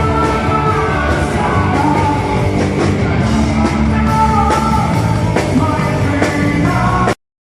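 Rock band playing a song with a sung vocal through a PA system. The sound cuts off abruptly to silence near the end.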